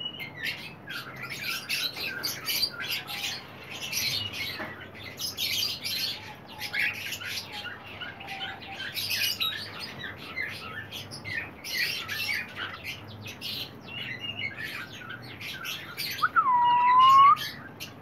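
Cockatiels chirping in quick short notes throughout, with one loud, drawn-out whistled call near the end.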